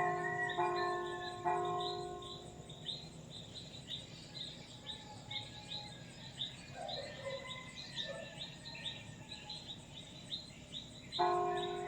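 Church bell ringing: a few strokes about a second apart at the start, fading, then striking again near the end. Underneath, short high chirps repeat a few times a second, with birds calling.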